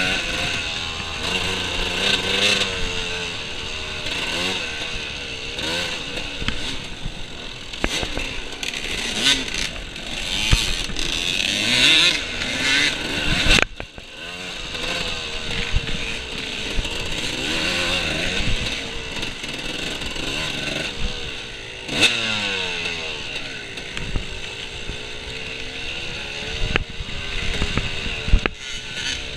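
Off-road dirt bike engine revving up and down again and again as it is ridden hard, with occasional sharp knocks. The engine sound dips suddenly for a moment about halfway through.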